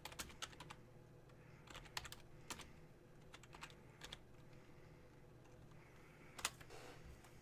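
Faint computer keyboard typing: scattered key clicks in small clusters, the loudest keystrokes about six and a half seconds in.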